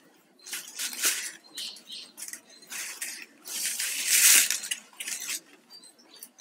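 Flat plastic weaving wires rustling and scraping against each other as hands work the strands at the base of a knotted wire cup, in a series of irregular brushes; the longest and loudest comes about four seconds in.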